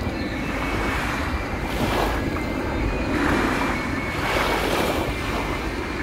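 Steady roar of the Airbus A350-1000's Rolls-Royce Trent XWB-97 turbofans as the airliner passes low and slow with gear down, with a faint high whine and wind gusting on the microphone.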